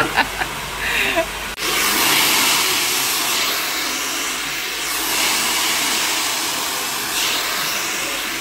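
Handheld hair dryer blowing, a steady rush of air that swells and eases a little as it is moved through the hair. It cuts in suddenly about one and a half seconds in.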